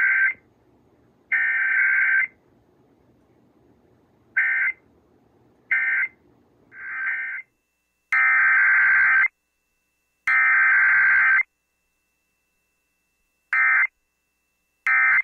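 Emergency Alert System SAME digital data bursts: a string of shrill, warbling data tones with gaps of about a second between them. Some bursts last about a second, like header bursts, and others last only a fraction of a second, like end-of-message bursts.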